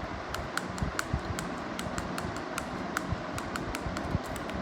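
A handheld fidget cube being clicked and turned in the hand: irregular sharp plastic clicks several times a second, over the dull rumble of fingers handling it.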